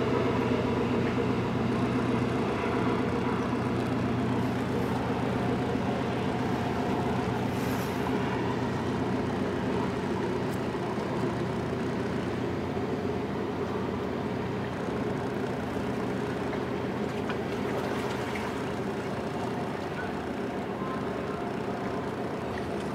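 Passenger ship's diesel engines running, a steady deep hum that slowly fades.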